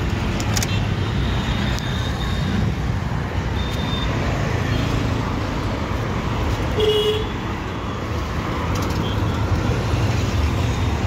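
Steady low rumble of running vehicles, with a brief high tone about seven seconds in.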